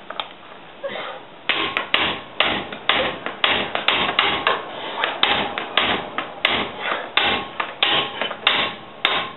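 Hammer blows on the socket wrench fitted to a seized 17 mm brake caliper bracket bolt, striking metal about twice a second from a second and a half in, to break the bolt loose.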